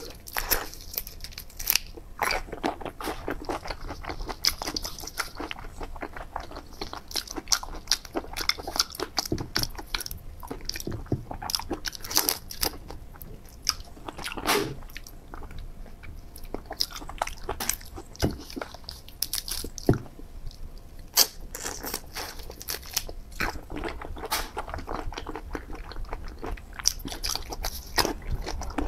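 A person eating marinated raw shrimp: sucking the meat out of the shells and chewing, a dense run of wet clicks and crunches.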